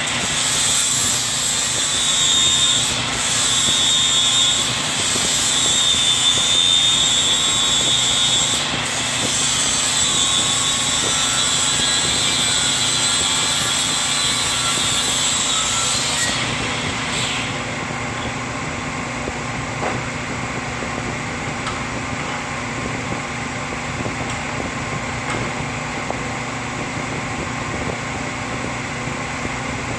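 Milwaukee cordless 4-1/2-inch angle grinder running with a high whine that wavers slightly in pitch. The whine cuts off about two-thirds of the way through, and a steady, lower hum carries on.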